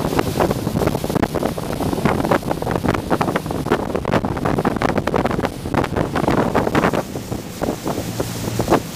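Heavy wind buffeting the microphone on the deck of the K-13 motorboat running at speed, with water rushing along the hull and a low steady drone underneath.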